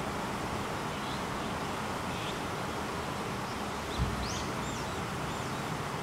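Faint, high bird chirps and short whistles, a few in a row about four seconds in, over a steady outdoor hiss. A single low thump comes just before the chirps.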